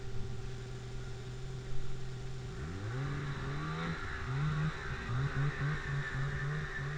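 Snowmobile engine running steadily, then revving up about two and a half seconds in, followed by a quick series of throttle blips, about three a second.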